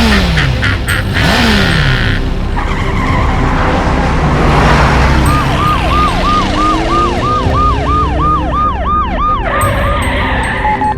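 Emergency-vehicle siren sound effect, rising and falling in quick arcs about three times a second, starting about five seconds in and stopping near the end, over a steady low rumble. A few falling whooshing sweeps come in the first two seconds.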